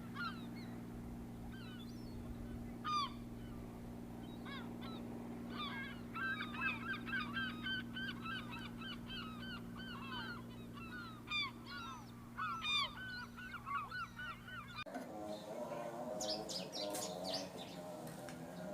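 Male hill prinia (cigun) singing: sharp high chirps and a fast run of rapidly repeated notes, the 'nembak' burst song with phrases copied from the cisem. A steady low hum lies under the song and stops abruptly about 15 seconds in.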